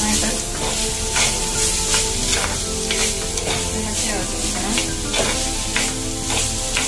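A spatula stirring chopped beans and carrots in a clay pot, scraping about twice a second as it mixes in turmeric, with the vegetables sizzling in oil.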